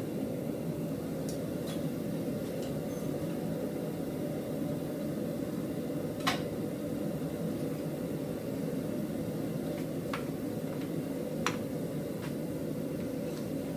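Steady running noise of a blacksmith's forge, with a few sharp metallic clicks, the strongest about six seconds in and another near eleven and a half seconds.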